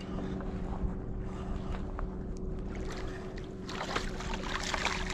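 A hooked fish, likely a black sea bass, being reeled to the boat, then thrashing and splashing at the surface from a little over halfway in. A steady low hum runs underneath.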